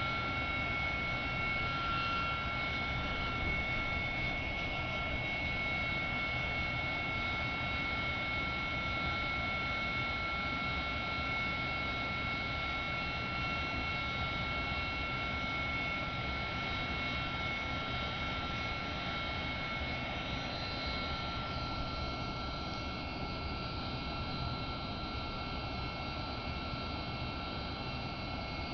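A-7 Corsair II's turbofan engine running steadily in a ground run-up: a rushing roar with a steady high whine on top. About three quarters of the way through, one of the whine's tones drops away and the sound eases slightly.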